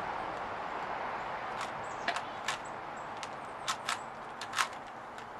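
Sharp plastic clicks of a Rubik's Cube being twisted, coming irregularly, about seven over a few seconds, over a steady hiss.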